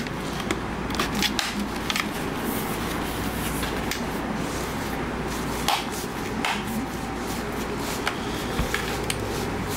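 Hands handling and fitting the aluminium back cover of a Wacom Cintiq Companion 2 tablet: a few scattered light taps and clicks over a steady background hiss.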